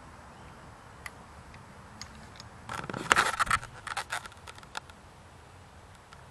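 Camera handling noise as the camera is lifted off a table and re-aimed: a few faint ticks, then a cluster of scrapes and clicks about three seconds in.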